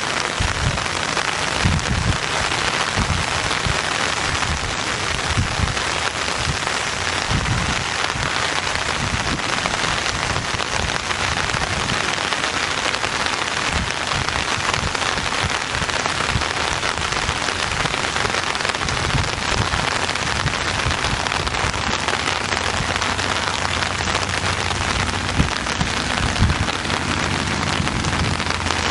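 Steady rain falling on open water and the surrounding bank, an even hiss of drops, with scattered dull low thumps.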